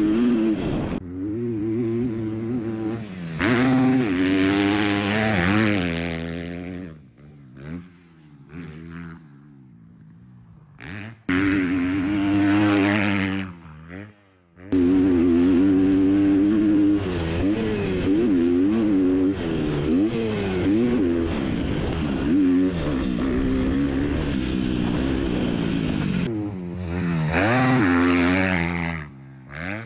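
2025 KTM SX-F 250's single-cylinder four-stroke engine revving hard and falling back again and again as the dirt bike is ridden flat out, with a few quieter stretches off the throttle.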